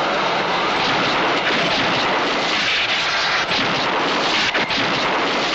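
Sci-fi special-effect roar: a loud, steady rushing noise, with a few sharp crackles about three and a half and four and a half seconds in as sparks shower.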